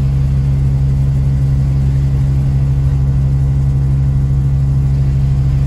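Steady low drone of a vehicle's engine and tyres heard from inside the cabin while driving on a snow-covered road.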